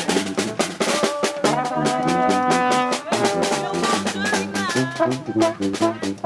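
Live funk band playing an instrumental passage: drum kit with snare and rimshots keeping a steady beat under held horn notes and bass.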